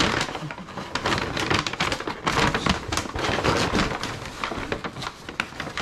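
Paper takeout bag rustling and crinkling as a plastic food container is handled and pulled out of it, a dense run of quick crackles.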